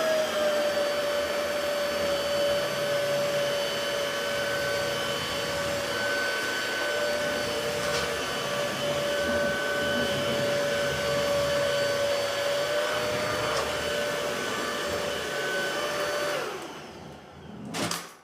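Cordless stick vacuum cleaner running at a steady pitch with a constant whine, then switched off about sixteen seconds in and winding down. A short click follows near the end.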